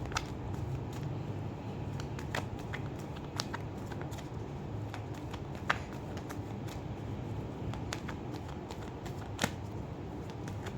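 Tarot cards being shuffled by hand: irregular soft riffling and sharp card snaps, with a louder snap about halfway through and another near the end, over a low steady hum.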